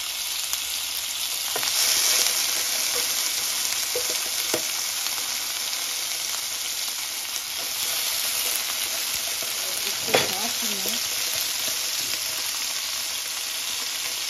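Pre-boiled chicken leg quarters sizzling in hot oil in a nonstick frying pan as they brown: a steady hiss that swells about two seconds in. A few light clicks and one sharper knock about ten seconds in come from metal tongs against the pan as the pieces are moved.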